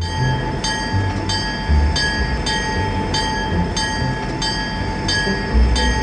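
A vehicle running, most like a train: a steady hum with a constant whine and a regular clack about one and a half times a second.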